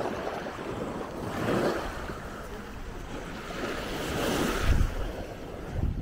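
Small waves breaking and washing up the sand at the water's edge, the hiss of the wash swelling about a second and a half in and again around four seconds in. Wind buffets the microphone with low rumbles.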